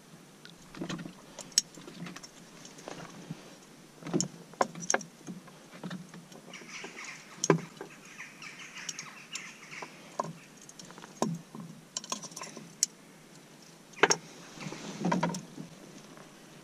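A pike being landed and unhooked in a small rowboat: scattered knocks and thumps of the fish and tackle against the boat's wooden boards, with light metallic clicks from the hook remover.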